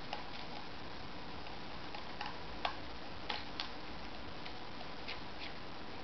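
Small screwdriver clicking against tiny screws as they are turned out of a laptop optical drive's rear mounting bracket: scattered light clicks, a few in quick pairs, over a steady faint hiss.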